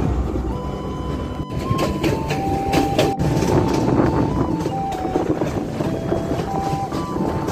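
Passenger train running, heard from a carriage window: a steady rumble with irregular clacks from the wheels on the rails. Over it sits a high tone that holds and then jumps between a few pitches.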